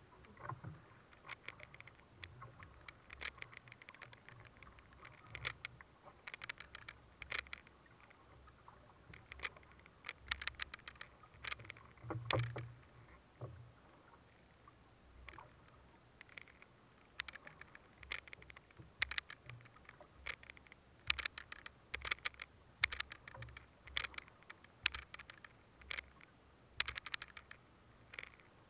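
Small wooden fishing boat drifting at sea, with waves lapping and slapping against the hull in quiet, irregular knocks and splashes.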